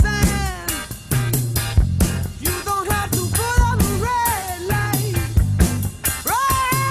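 Music soundtrack with a regular drum beat and a lead melody that slides and bends in pitch.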